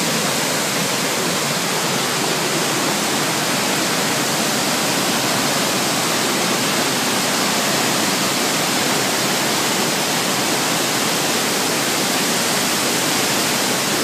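Ouzoud waterfall: the steady, loud rush of falling water, an even hiss that never lets up.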